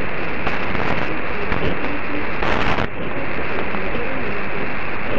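Medium-wave AM radio reception of a distant station on 954 kHz through a software-defined receiver: steady hiss and static filling the band, with a brief louder burst of hiss about two and a half seconds in.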